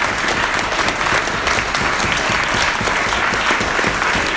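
Audience applauding: a dense, steady patter of many hands clapping in a room.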